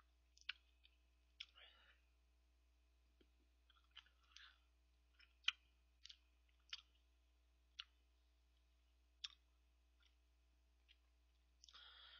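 Faint, irregular sharp clicks and small wet mouth sounds of someone eating ice cream off a metal spoon, picked up by a microphone right at the mouth; a slightly longer soft smacking sound comes near the end.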